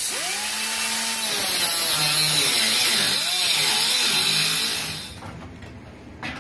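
Pneumatic cut-off tool with a small abrasive wheel cutting through a rusty car-body sheet-metal panel: a loud air hiss with a whine whose pitch dips and rises as the wheel bites into the metal, stopping about five seconds in.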